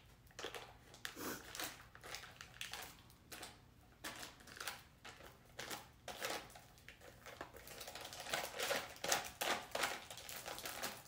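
Foil cream cheese wrapper crinkling as a spatula scrapes diced cream cheese off it into a slow cooker, a run of irregular rustles and small scrapes that gets busier about eight seconds in.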